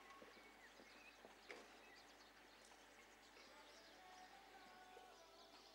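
Near silence: faint outdoor ambience with birds chirping briefly now and then and a few soft thuds.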